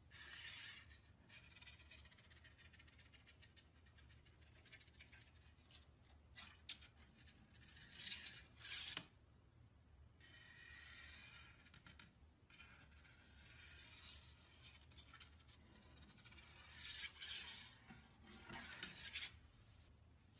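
Faint rustling and scratching in several bursts, with scattered small clicks, from a cat shifting about inside a cardboard box.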